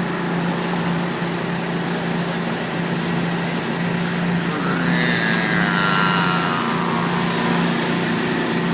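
Boat motor running with a steady drone. Midway a higher whine sweeps down in pitch over about three seconds.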